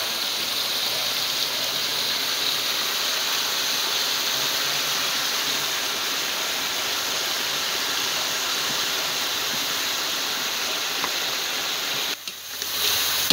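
Goat meat sizzling in a large wok: a steady frying hiss that cuts out briefly near the end.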